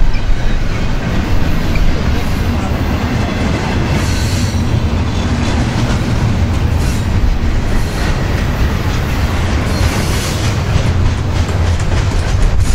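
Double-stack intermodal well cars loaded with shipping containers rolling past: a loud, steady rumble of steel wheels on rail, with wheel clacks over the rail joints.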